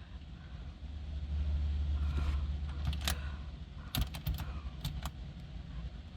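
Car interior with a low hum that swells about a second in, and a quick series of sharp clicks from the dashboard radio's buttons being pressed just after the stereo has been unlocked with its security code.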